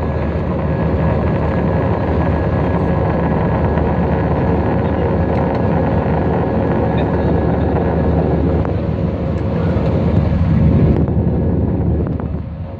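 Airbus A320 jet engines running, a steady loud noise of engines and rushing air with a low hum underneath. The sound thins out about eleven seconds in and briefly drops near the end.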